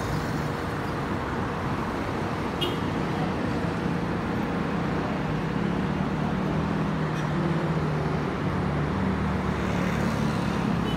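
City road traffic: a steady wash of passing cars and motorcycles, with one vehicle's engine hum coming up louder in the second half.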